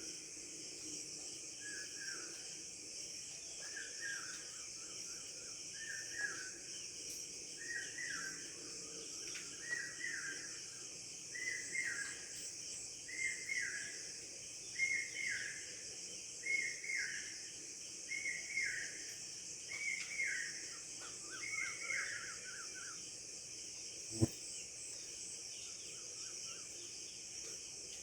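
A bird repeating a short call over and over, about every second and a half, growing louder toward the middle and stopping a few seconds before the end, over a steady high hiss of insects such as crickets. A single sharp click sounds near the end.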